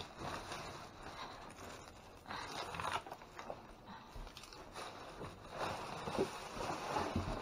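Rustling, crinkling and scraping of bags and packaged food being rummaged through in a dumpster, in irregular bursts with a few light knocks.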